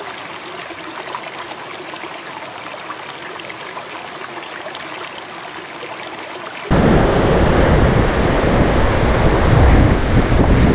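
Trout river water trickling and babbling in the shallows. About two-thirds of the way in, it jumps suddenly to a much louder, deeper rushing noise of the river, with a low rumble that sounds like wind or water buffeting the microphone.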